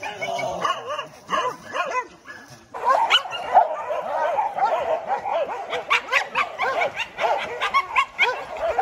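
A pack of hunting dogs barking and yelping in many overlapping voices. The calls thin out briefly, then grow denser and louder about three seconds in.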